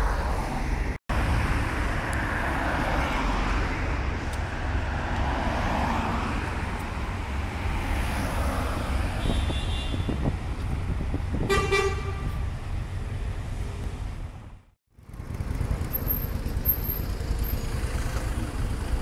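Road traffic passing close by on a city street, a steady low rumble of engines and tyres. A car horn gives a short toot a little past halfway, and the sound drops out briefly twice at edit cuts.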